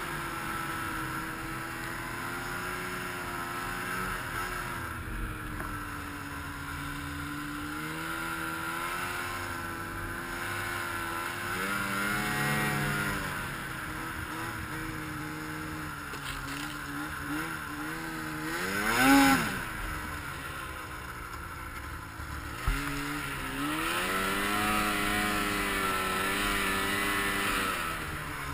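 A 2014 Arctic Cat M6000's two-stroke engine under load as it pushes through deep snow, its revs rising and falling with the throttle. About two-thirds of the way through comes a sharp, brief rev that is the loudest moment, and a single knock follows a few seconds later.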